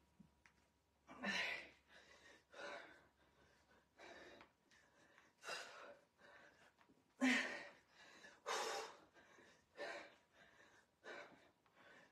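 A woman breathing hard from exertion during bicycle crunches, with a short forceful breath about every second and a half. The two loudest come a little past the middle.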